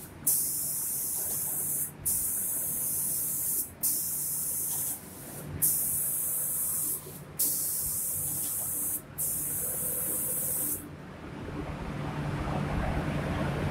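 Automatic paint-spraying machine's spray gun hissing in six bursts of about a second and a half each, switching on and off as it makes its passes over the cabinet doors. The spraying stops about eleven seconds in, and a lower, steady machine noise takes over.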